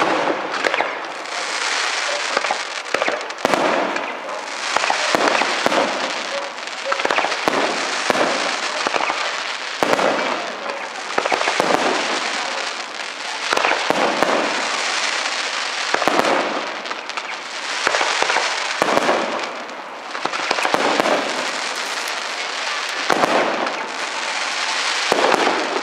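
Aerial firework shells bursting in a dense, continuous barrage, many sharp bangs overlapping with a steady crackle.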